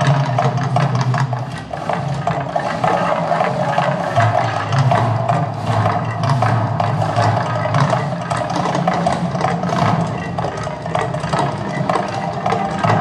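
Volcano show erupting: a loud, continuous rumble thick with dense crackling, mixed with music that has percussion.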